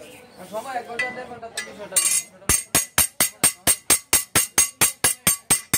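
Small hand hammer striking a curved steel cutter blade on a steel anvil: a fast, even run of sharp ringing blows, about four a second, beginning about halfway through.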